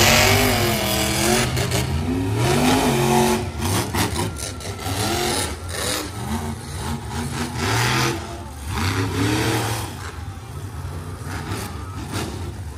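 Monster truck engines revving up and down again and again, in repeated swells of pitch. The sound is loudest in the first seconds and falls away about ten seconds in.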